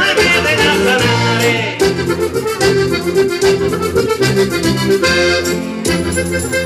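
An accordion plays Sardinian folk dance music (ballo) with a steady beat.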